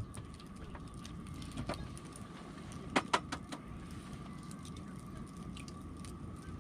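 Wood campfire crackling, with scattered small pops and two sharper cracks about three seconds in.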